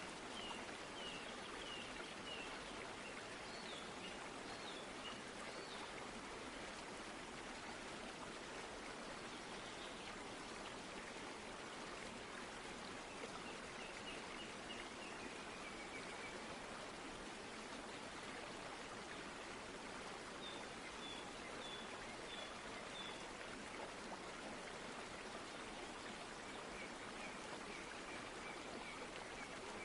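Faint steady rush of running water, like a stream. Over it a small bird calls about five times, each call a run of short repeated chirps at two or three notes a second.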